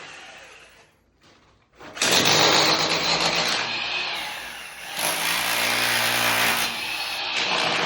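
A power tool starts about two seconds in and runs steadily under load, easing briefly near the middle before picking up again.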